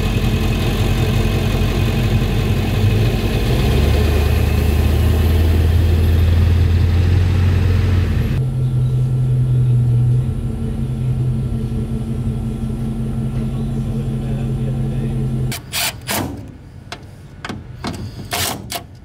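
Pickup truck engines running steadily in two shots, with a cut about eight seconds in; the second is the green Chevrolet Silverado 1500 moving up to the trailer. In the last few seconds the engine stops and there are several sharp clanks and knocks.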